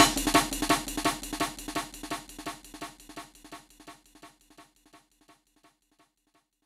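Electronic dance music fading out: a fast, even drum beat and a held low tone die away to silence about five seconds in.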